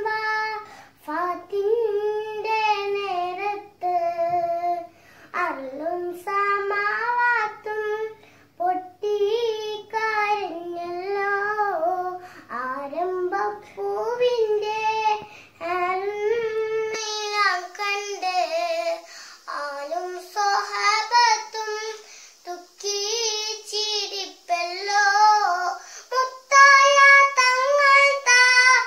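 A young girl singing a song solo without accompaniment, in held, wavering phrases with short breaths between them.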